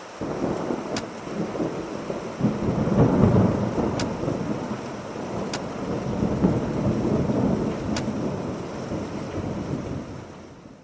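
Low rolling rumble of thunder that comes in suddenly, swells about three seconds in and again a little past the middle, with four sharp clicks over it, then fades out at the end.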